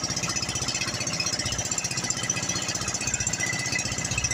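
Outrigger boat's inboard engine running steadily under way, with a rapid, even beat.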